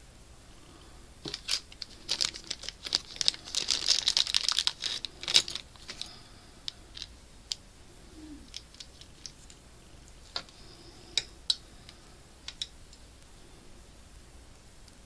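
A small plastic bag of interchangeable knitting-needle parts being handled: a few seconds of dense crinkling and rustling, then scattered light clicks as metal needle tips and cable pieces are fitted.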